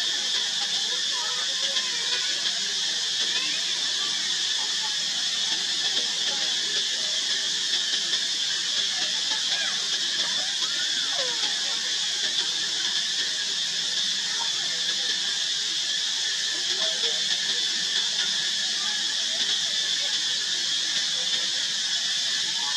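Steady, high-pitched buzzing of insects, with faint short squeaks and chirps scattered through it.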